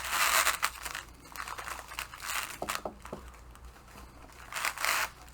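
Packing peanuts and packaging rustling and crinkling as hands dig through a shipping box, in a loud burst at the start, quieter rustles and clicks in the middle, and another burst near the end.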